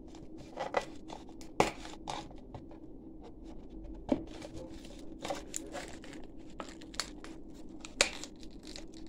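Soft plastic crinkling and tearing with a few sharper clicks, as a label is peeled off a plastic soda bottle.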